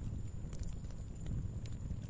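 Wood fire burning: a steady low rumble with a few faint crackles of the firewood.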